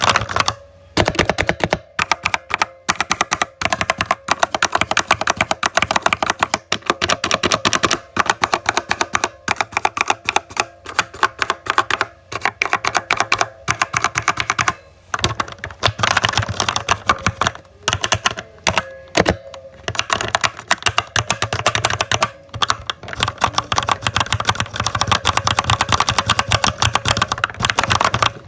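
Computer keyboard being typed on rapidly: a dense, continuous run of key clicks with a few short pauses.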